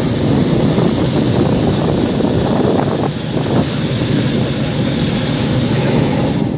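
Hot-air balloon's propane burner firing in one long, steady blast, a loud rushing hiss that cuts off suddenly near the end.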